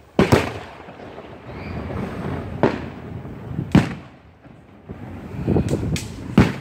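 Aerial firework shells bursting: a loud bang about a quarter second in, more bangs near three and four seconds, and a quick cluster of bangs near the end, with a low rumble lingering between them.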